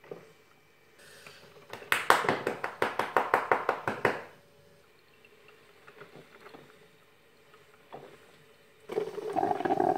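Drip coffee maker gurgling and sputtering as it brews into the glass carafe, in a rapid run of spurts for about two seconds. Fainter crackling follows, and another louder burst comes near the end.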